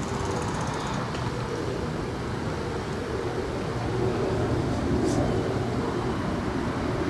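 Steady rumble of distant road traffic, getting a little louder about four seconds in, with a brief high sound about five seconds in.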